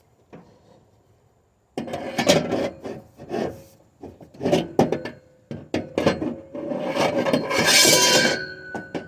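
Irregular rough scraping and rubbing strokes of hand tools working against wood and metal on a riding mower's blade assembly, starting about two seconds in and heaviest near the end, where a brief metallic ring follows.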